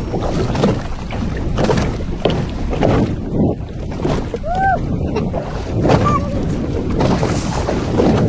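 Wind rushing over the microphone on an open boat at sea, with water washing against the hull: a loud, steady rush broken by a few light knocks.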